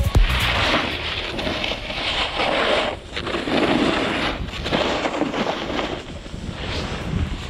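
Wind buffeting a handheld action camera's microphone, with the hiss of a snowboard sliding through powder snow swelling and fading every second or two as it turns.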